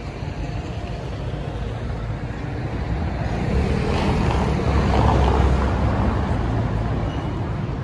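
A road vehicle passing on a city street: low rumble and tyre noise swell to a peak about halfway through, then fade away.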